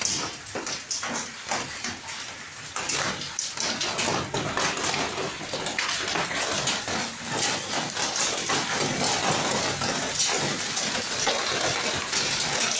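Hailstorm: hail and heavy rain pelting down in a dense, steady patter of many small hits.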